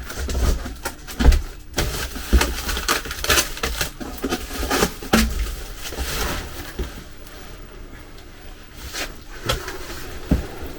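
Unpacking noise as a 3D printer is lifted out of its box by its carrying bag: plastic and packaging rustling and scraping, with irregular knocks and thumps, the hardest about a second in.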